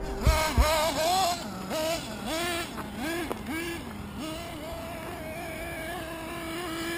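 Hobao Hyper 7 TQ2 nitro RC buggy's .21 nitro engine being blipped on the throttle, its pitch rising and falling about seven times in quick succession, then holding a steady high pitch through the second half.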